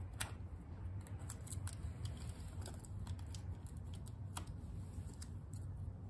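Plastic motor-oil bottle being handled and its screw cap twisted off: a scatter of faint clicks and plastic crackles, the sharpest just after the start, over a low steady hum.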